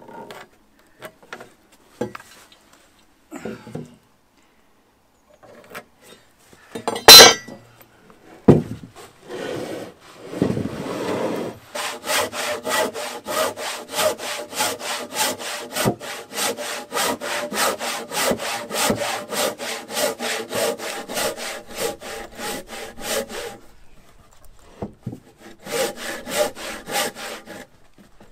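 Hultafors hand saw cutting across a timber beam with quick, even back-and-forth strokes, about twelve seconds of steady sawing, a short pause, then more strokes near the end. Before the sawing there are a few light knocks and one sharp, loud knock about seven seconds in.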